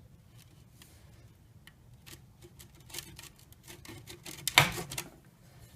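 Knife cutting the sealed plastic tip off a battery acid filler tube: faint scattered clicks and handling, with a short louder burst of clicks and snips about four and a half seconds in.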